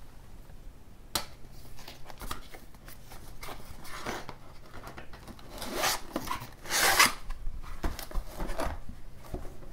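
Cardboard box and packaging being opened and handled: rubbing, rustling and tearing in irregular bursts, with a sharp click about a second in and the loudest rustling around six to seven seconds in.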